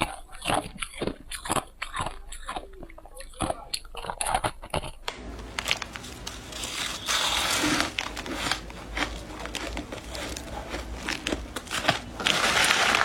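Person biting and chewing shaved, refrozen ice. It starts as a run of sharp separate crunches, then after about five seconds turns to a denser grinding crunch that swells around seven seconds and again near the end.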